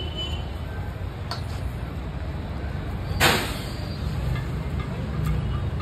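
Street background with a steady low rumble of traffic, and one short, sharp burst of noise about three seconds in.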